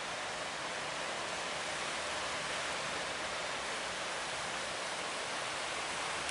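Steady rushing hiss of wind and sea water on a boat riding heavy waves, even and unbroken.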